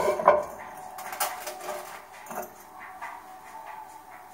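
Clinks and knocks of an incense burner being handled and set up on a shelf: a few sharp clinks at the start, then quieter knocks and rustling.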